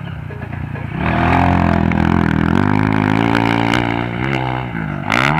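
Dirt bike engine, loud from about a second in, revving up and down as it accelerates across the dirt track toward a jump. A short loud burst near the end.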